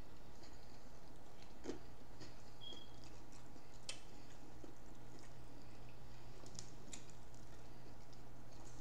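Chewing and eating sounds of people eating fried seafood, with a few sharp clicks scattered through, over a steady low hum.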